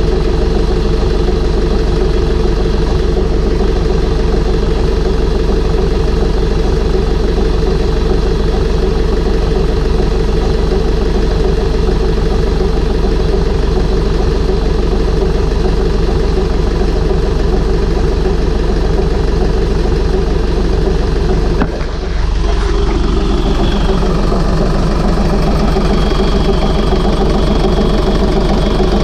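Air-cooled four-cylinder Deutz diesel engine running steadily, freshly rebuilt with new head gaskets, with a brief drop in sound about three-quarters of the way through.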